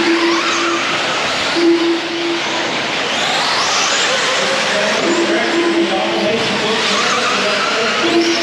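Electric RC off-road buggies and truggies racing on a dirt track. Their motors whine, rising and falling in pitch as the cars accelerate and slow, over a steady rush of noise.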